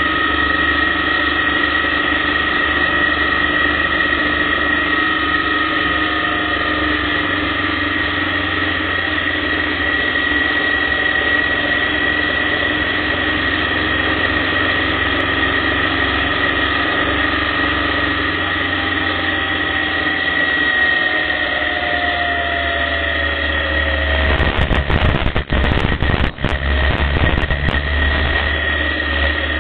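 Motorcycle engine running at a steady cruising pace while riding, heard through a bike-mounted camera, with wind rushing on the microphone. The engine note drops slightly about two-thirds in, and near the end the wind buffets the microphone hard for a few seconds.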